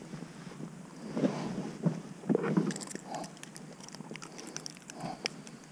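Handling noise while a bass is unhooked with pliers: dull knocks and rustling of gloves and clothing about one and two and a half seconds in, then a run of small sharp clicks as the pliers work the hook.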